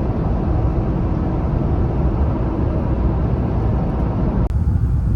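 Steady low rumble of a moving vehicle, broken by a sudden change about four and a half seconds in.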